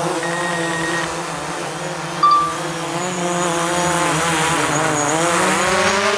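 DJI Mavic Pro quadcopter's propellers humming as it hovers close in strong, gusty wind. The pitch wavers and swings up and down near the end as the motors work against the gusts. A short thin beep sounds near the start, and a louder short beep with a click comes about two seconds in.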